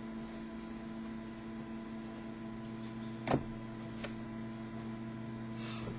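Steady electrical hum with a few even, pitched overtones, broken by one sharp click about three seconds in and a fainter click about a second later.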